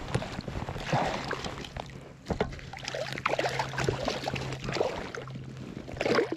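Water splashing and sloshing in irregular bursts as a hooked rainbow trout fights hard at close range.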